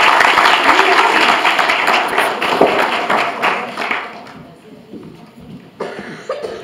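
Audience applauding after a children's performance, with voices mixed in, dying away about four seconds in.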